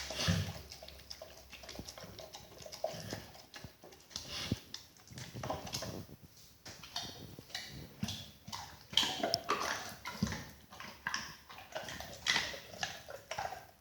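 A 45-kilo pit bull dog at close range making many short, irregular noisy sounds with scattered knocks.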